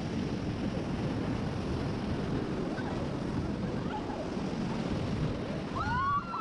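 River rapids rushing steadily around a raft, with wind on the microphone. Near the end, shrill yells rising and falling in pitch break in over the water.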